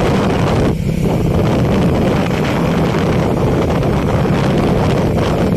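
Wind rushing over the microphone and road noise from a moving vehicle, with a steady low engine hum underneath; a loud, continuous noise, briefly easing about a second in.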